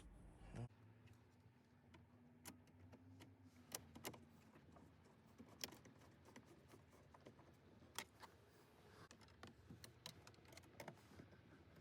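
Faint, irregular clicks and light taps of small parts and tools being handled.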